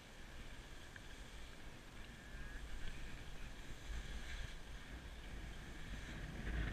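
Wind buffeting the camera microphone of a skier going downhill, with the steady hiss of skis sliding over packed snow.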